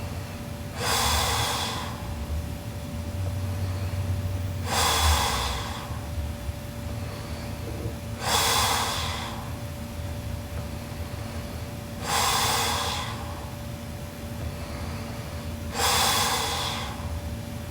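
A sleeping girl snoring: five loud, noisy snores at a steady pace of about one every four seconds, each lasting about a second.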